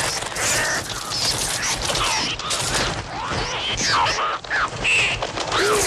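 Mixtur-Trautonium electronic bird effects: a dense mass of short synthetic cries gliding up and down in pitch over a continuous rapid rattle.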